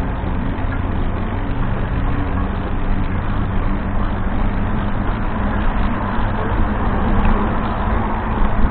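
Steady wind and road rumble on a camera microphone riding along on a small two-wheeler, with motor traffic all around and a constant low hum underneath.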